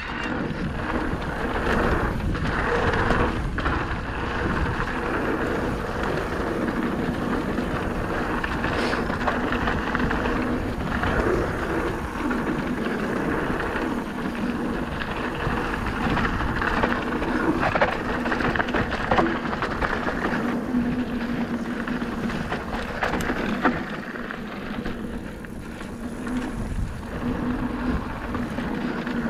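Merida eOne-Sixty 800 electric mountain bike riding down a dirt and gravel trail: steady rough tyre noise on the dirt, with frequent short clicks and rattles from the bike over bumps and stones.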